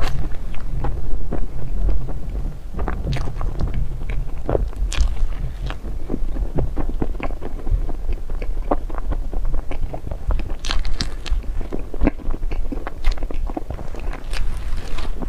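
Close-up eating sounds of a dessert being bitten and chewed, with many small crisp crackles and clicks over a steady low rumble.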